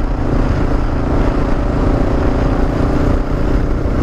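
Motorcycle engine running at a steady cruising speed, mixed with tyre noise on loose gravel and wind rush.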